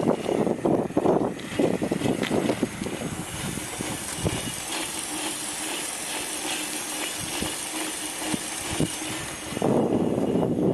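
Home-built e-bike driven by a washing-machine motor, running along. Wind buffets the microphone for the first few seconds, then comes a steadier stretch of high hiss with a faint wavering high tone and a low hum. The wind buffeting returns near the end.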